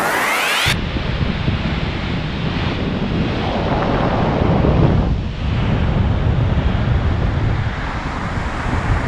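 Wind buffeting the microphone over the rush of the ship's bow wave, a steady noisy rumble. A rising sweep ends just under a second in.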